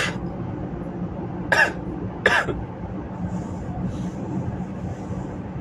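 A person coughs twice, short sharp coughs about one and a half and two and a half seconds in, over a steady low hum.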